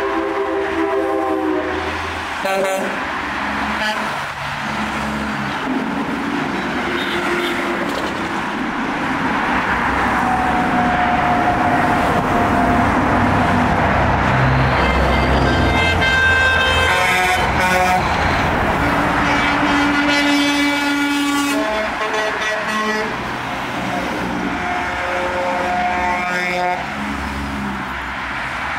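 Convoy of trucks and other vehicles passing on a highway, a steady rush of engine and tyre noise, with horns honking again and again, some held long.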